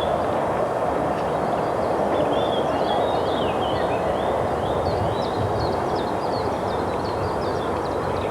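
Birds chirping, a run of quick high chirps starting about two seconds in and coming thick and fast near the end, over a steady rushing background noise.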